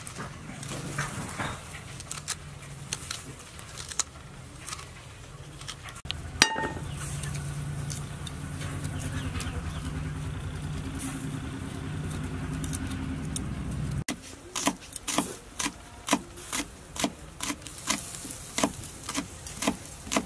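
A metal spoon scraping seeds out of a halved green gourd, with light scrapes and clicks. Later a steady low drone, and then a kitchen knife chopping green chilies on a wooden cutting board: sharp, even chops about two to three a second.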